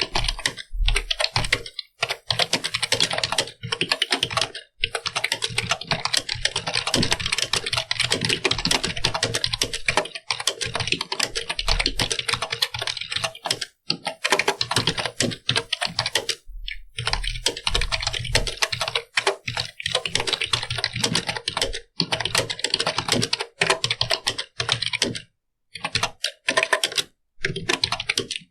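Computer keyboard being typed on continuously, fast runs of key clicks broken by brief pauses every few seconds.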